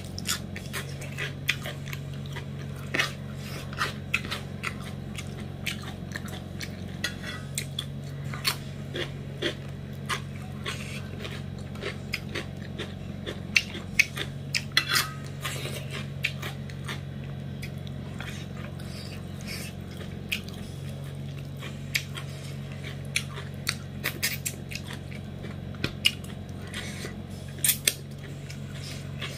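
A person chewing a mouthful of rice and fish curry eaten by hand, with frequent short wet mouth clicks and smacks, over a steady low hum.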